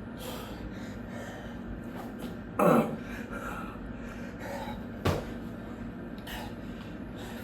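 A man breathing hard and gasping, out of breath from doing burpees, with one loud gasping exhale about two and a half seconds in. A single sharp thump comes about five seconds in.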